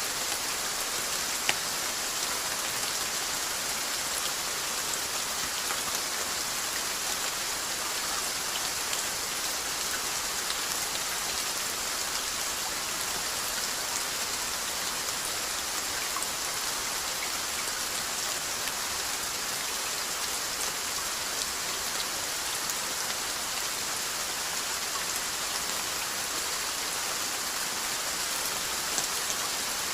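Steady rain falling on a surface, an even hiss with scattered patter of individual drops and one sharper drop click about a second and a half in.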